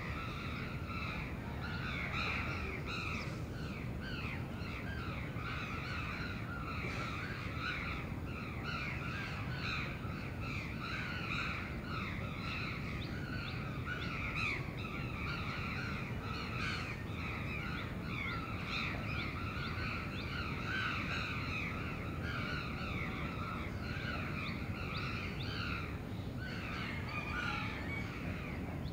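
Many crows cawing without pause, their calls overlapping, over a steady low rumble of city background.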